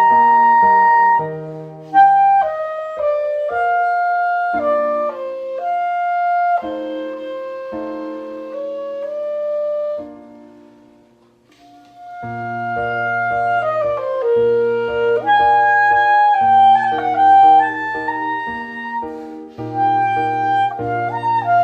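Solo clarinet playing a melodic line over a lower accompaniment. About ten seconds in the music dies away to a brief pause, then the clarinet and accompaniment start again.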